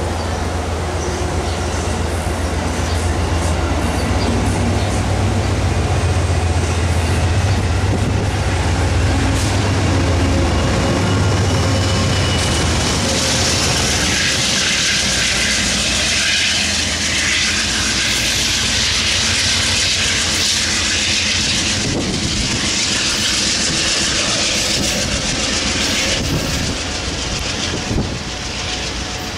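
Amtrak passenger train passing close at speed: a steady low diesel drone as the coaches roll by. About halfway through, a loud rushing hiss comes in as the GE Genesis diesel locomotive pushing at the rear goes past. The sound then eases as the train moves off.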